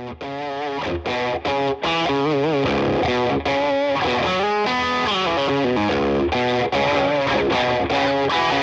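Instrumental music led by a distorted electric guitar, with bent, wavering notes over a steady beat.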